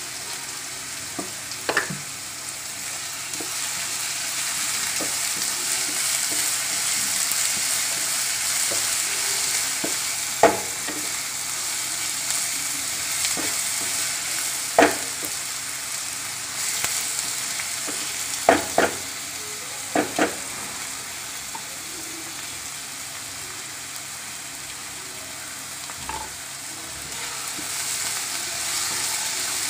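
Chopped onions and ginger-garlic sizzling in oil in a nonstick pan as they are stirred with a wooden spatula. The spatula knocks sharply against the pan a few times, three taps close together about two-thirds of the way in.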